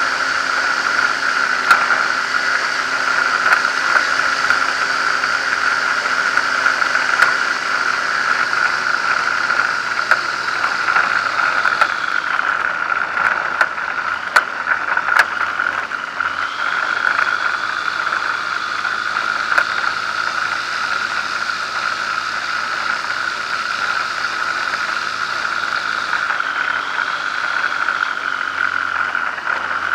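Zenair 701 light aircraft's engine and propeller running at low taxi power, the engine speed shifting slightly now and then, with occasional sharp clicks and rattles as the plane rolls over the rough dirt strip.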